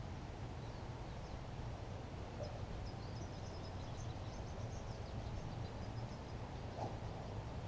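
Outdoor ambience: a steady low rumbling noise, with faint quick chirps of small birds for a few seconds in the middle.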